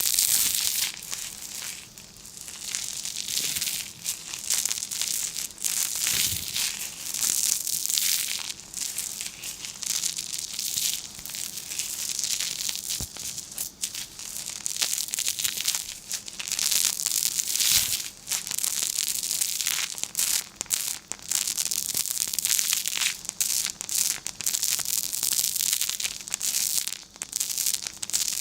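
Paper crinkling and crackling as it is handled and folded by hand: a dense, continuous run of small crisp crackles with brief dips in between.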